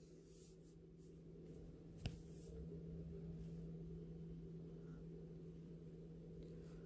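Closed pressure cooker heating on a stove: a faint, steady low hum and rumble that grows slightly louder after the first second or two, with one sharp click about two seconds in.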